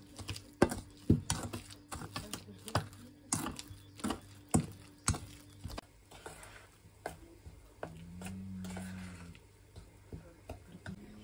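Hands squeezing and mashing a crumbly white mixture in a stainless steel bowl, with sharp knocks against the metal about twice a second; the knocks stop about six seconds in and the mixing goes on more quietly.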